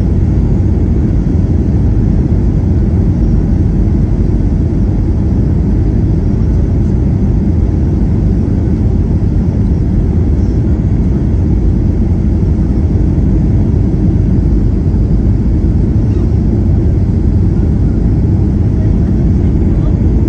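Steady cabin noise inside a Boeing 737-800 descending for landing: the CFM56 turbofan engines and the airflow over the fuselage make an even, low rumble that does not change.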